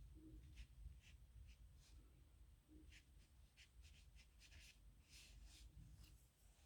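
Faint scratching of a metal nib pen on paper in many short, irregular strokes as someone writes.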